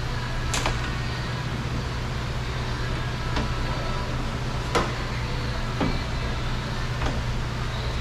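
A handful of sharp clicks and knocks from car door parts being handled and pulled loose, the clearest about half a second in and near five seconds, over a steady low hum.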